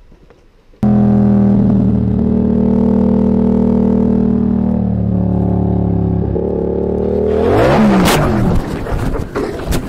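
Motorcycle engine running steadily under way, starting abruptly about a second in. Near the end the engine pitch swings up and down, a loud impact of the crash comes, and then a clatter follows.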